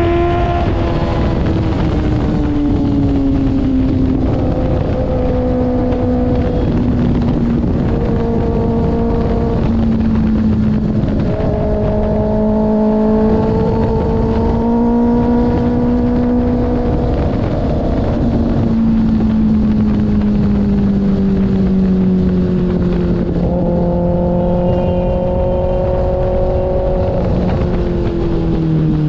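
2024 Kawasaki ZX-6R's inline-four engine running through an IXIL aftermarket exhaust, loud and steady, its pitch drifting slowly and shifting in steps several times as engine speed changes, with a gradual fall in pitch over the second half.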